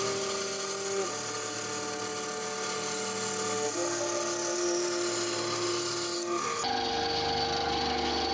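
Bandsaw blade cutting through a wooden lure blank, a steady hiss that stops about six seconds in as the cut finishes. Soft background music with long held notes plays underneath.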